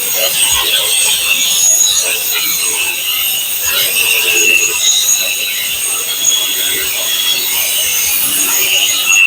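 Macallister 18V cordless angle grinder with a 115 mm thin cutting disc cutting through 2 mm metal tubing: a steady, high-pitched grinding screech of disc on metal.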